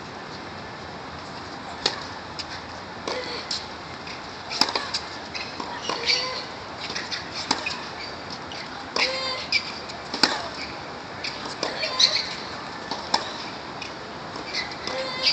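Tennis balls struck by rackets and bouncing on a hard court: irregular sharp pops every couple of seconds over a steady outdoor background hum.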